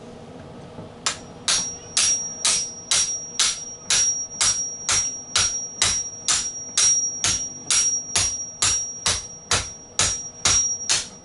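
Steady hammering on metal: about twenty sharp strikes, roughly two a second, starting about a second in, with a high metallic ring that carries on between them.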